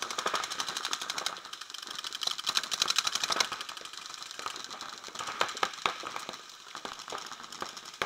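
Paintball markers firing rapid strings of shots, a fast, even popping many times a second, loudest about two to three and a half seconds in.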